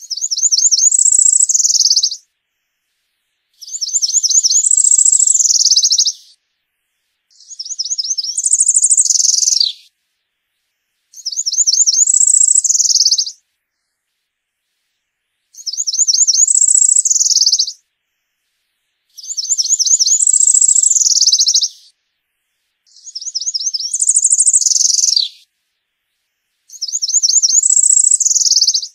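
A Setophaga wood-warbler singing its song eight times in a row. Each song is a quick run of high buzzy notes that climbs into a higher buzz at the end, about every three to four seconds with short silent gaps.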